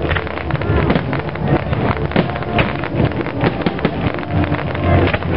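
Fireworks barrage: many shell bursts and crackles in quick, overlapping succession over a continuous low rumble.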